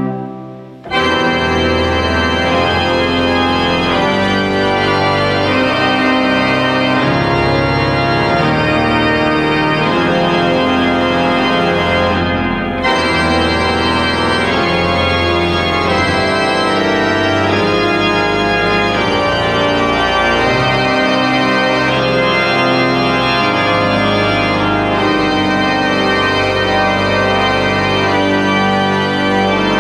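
Oliwa Cathedral pipe organ playing a full, sustained chordal passage over a deep bass line. The sound breaks off briefly at the start and comes back loud about a second in.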